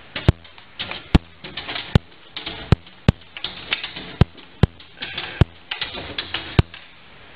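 A dog licking and nosing a glass pane: sharp taps of nose or teeth on the glass at irregular spacing, about one a second, with wet licking and rubbing on the glass in between.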